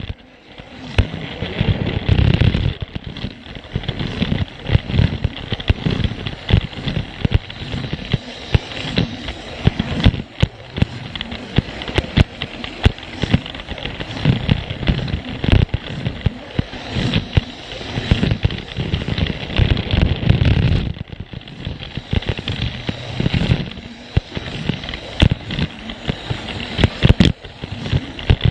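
Plarail toy train running on plastic track: the small motor and gears rumbling, with a steady run of irregular clicks and rattles as the wheels cross the track joints. The sound drops away briefly just after the start and again around two-thirds of the way through.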